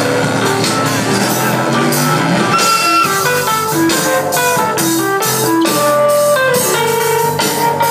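Live dub band playing: drum kit keeping a steady beat with guitar, and a melody of held notes coming in about three seconds in, one note near the end wavering in pitch.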